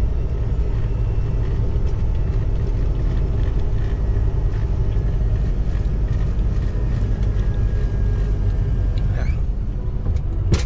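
Steady low rumble of a moving vehicle's engine and tyres on the road, heard from inside the cab while driving along the expressway.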